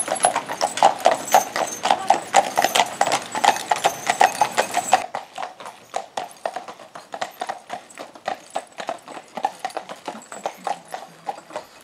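Hooves of a pair of carriage horses clip-clopping on a tarmac road, a fast, steady rhythm of sharp knocks. About five seconds in the hoofbeats drop suddenly to a quieter, more distant clip-clop.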